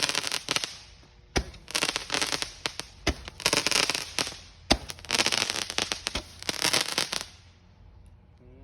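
Small consumer fireworks going off in rapid crackling bursts with sharp pops and bangs, in several clusters, stopping about seven seconds in.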